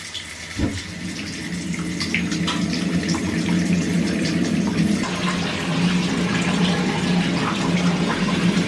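Shower water running steadily into a tiled shower, starting with a short knock about half a second in.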